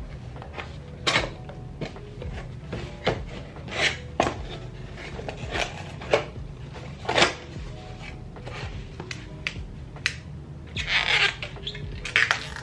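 Cardboard shipping box being opened by hand: the flaps are pulled up and bent back, giving short scrapes and crackles of cardboard at uneven intervals, with a longer rustle near the end as the box inside is handled.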